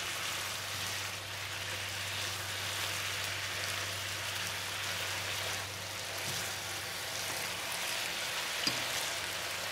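Sauce sizzling and bubbling steadily in a hot nonstick frying pan as tofu cubes are stirred through it with a spatula; the electric burner under it has just been switched off. One sharp tick near the end.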